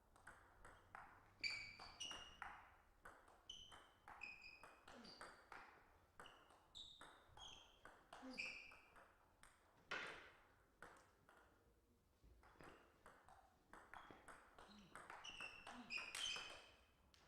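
Table tennis ball in a rally, struck by bats and bouncing on the table in a quick, irregular series of sharp clicks, each with a short high ring. One louder hit comes about ten seconds in.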